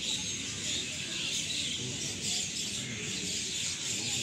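Birds chirping, with small scattered calls over a steady high hiss.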